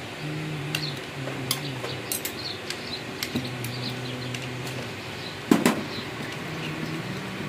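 Small metallic clicks and clinks of a spanner working the oil filler cap on an electric jackhammer's gear housing, with one louder knock about five and a half seconds in.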